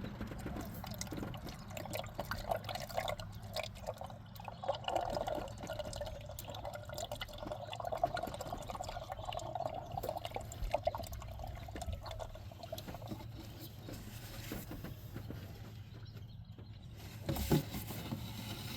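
New motor oil (Valvoline 0W-20) gurgling as it pours from a bottle into a funnel screwed into the engine's oil fill hole. The pour eases off about twelve seconds in, and there is a short knock near the end.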